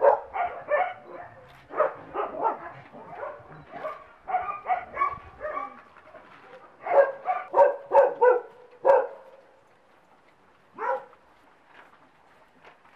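Dogs barking in bursts of short, repeated barks, then mostly quiet for the last few seconds apart from one more bark.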